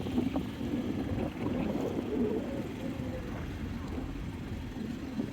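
Boat engine running steadily, heard from aboard the boat, with a faint wavering tone about two seconds in.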